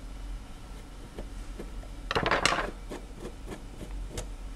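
Small metal clicks and scraping as long steel screws are worked out of the frame of a 1917 Monroe mechanical calculator and handled, with a short cluster of rattling clicks about two seconds in as the loudest part.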